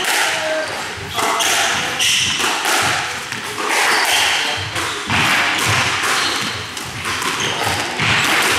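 Squash rally: the rubber ball repeatedly smacking off rackets and thudding against the court walls, a sharp impact every half second or so, with short squeaks from the players' shoes on the wooden floor.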